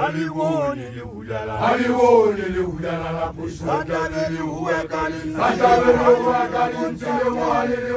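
A man chanting at full voice in a declaiming, sing-song delivery, with short breaths between phrases and some notes held: a newly graduated Basotho initiate (lekoloane) reciting his praise poem (lithoko).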